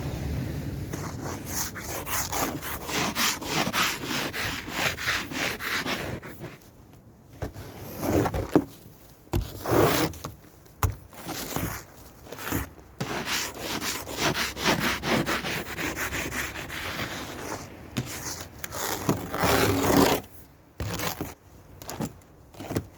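Snow and frost being scraped and brushed off a car. First come quick, even strokes, about four a second, then slower, uneven strokes with a few sharp knocks.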